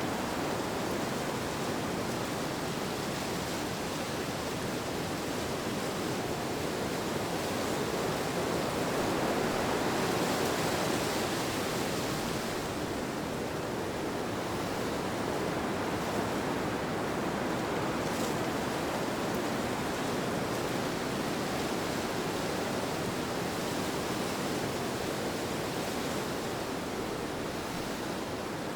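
Steady rushing wind ambience, swelling slightly about ten seconds in and then easing back.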